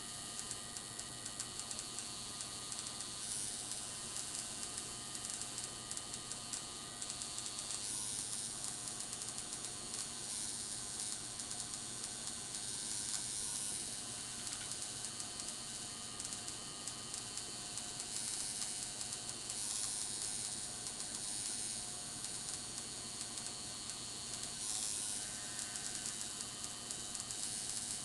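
Electric tattoo machine buzzing steadily while its needle works ink into the skin of a forearm.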